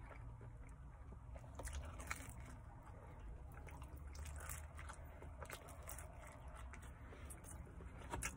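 Close-up chewing and biting into the crisp crust of a Papa John's pepperoni pizza slice, with several sharp crunches, the loudest about two seconds in and near the end. A low steady hum runs underneath.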